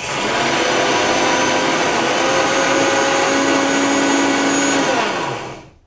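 Electric mixer-grinder running with its small chutney jar, grinding hemp seed (bhang) with green chilli, ginger and salt into a chutney. It runs loud and steady for about five seconds, then is switched off and winds down with a falling whine.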